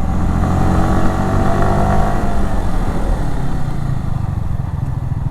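Yamaha R15 V3's 155 cc single-cylinder engine running through its stock exhaust while riding; the revs fall off over a couple of seconds, then it runs on at lower revs.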